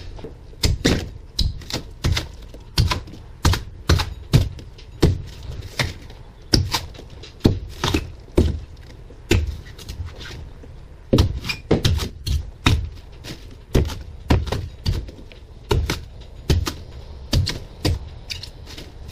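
A hand tool repeatedly striking and hacking at the foam packed under a fibreglass boat's dash: sharp, irregular thunks about one or two a second, with a short pause about halfway through.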